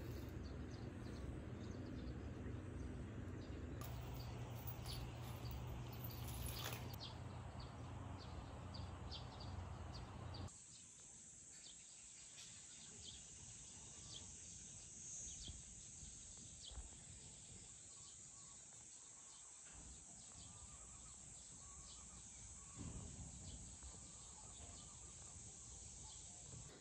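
Faint rural outdoor ambience: a low, even rumble for about the first ten seconds. After an abrupt change it gives way to a steady high-pitched insect drone with a few faint bird chirps.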